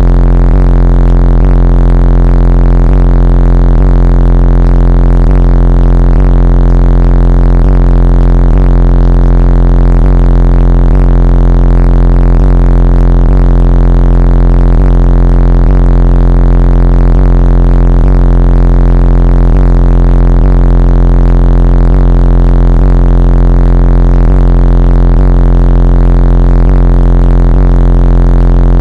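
Loud bass-heavy music from a car stereo, overdriving the microphone, with a deep steady bass tone and a beat repeating about once a second.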